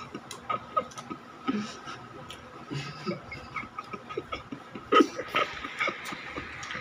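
Crisp biscuits being bitten and chewed: scattered short crunches and clicks, with one sharp, loud crunch about five seconds in, over a faint steady high tone.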